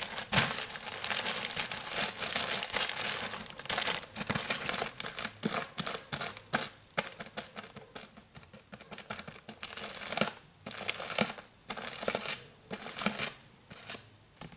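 Fingernails scratching over the crinkly plastic film wrap of a four-pack of toilet paper rolls, in quick irregular strokes with short pauses.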